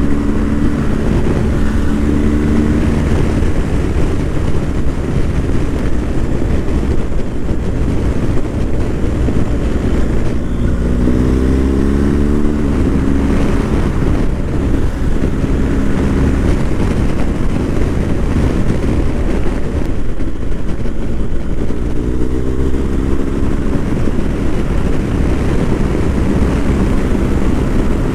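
BMW R1250 GS boxer-twin engine riding along, its note climbing under acceleration about eleven seconds in and again about twenty-two seconds in, then dropping back, over steady wind and road noise.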